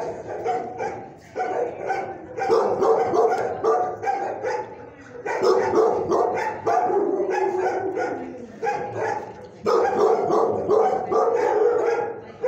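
Dogs barking in the shelter's kennel block, in repeated bouts of a few seconds with short lulls between them.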